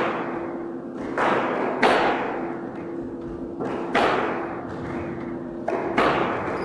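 Squash rally: the ball is struck by rackets and hits the walls, about seven sharp impacts, several in quick pairs, each echoing around the enclosed court. A faint steady hum runs underneath.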